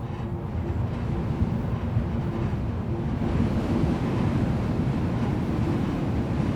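Wind around a power-line post with its wires humming in the wind like an aeolian harp: a low, gusty rumble of wind on the microphone under faint steady humming tones. The tones fade and the wind grows louder about halfway through.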